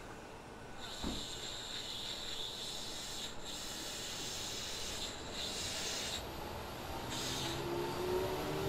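Electric commuter train moving at the station: wheels on the rails give a steady rasping hiss. Near the end a motor whine rises in pitch as the train picks up speed.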